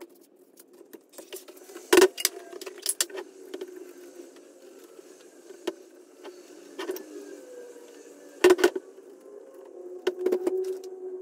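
Clicks, taps and knocks of hands and a hand tool working on a leather-wrapped steering wheel and its bare metal frame, with two sharper knocks about two seconds in and again past eight seconds. A low steady hum runs underneath.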